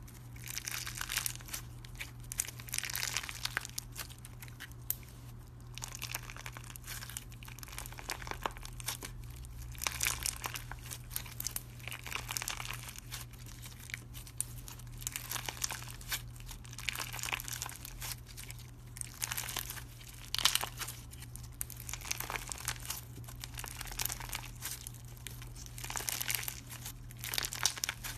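Clear slime packed with polymer-clay dragon-fruit slices being squeezed and kneaded by hand: irregular crackly, crinkling squishes every second or two, with one sharper crackle about two-thirds of the way through.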